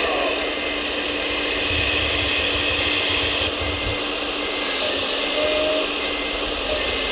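Small electric hydraulic pump of a radio-controlled Komatsu excavator model whining steadily as the boom and bucket work, with a hiss that drops away about three and a half seconds in.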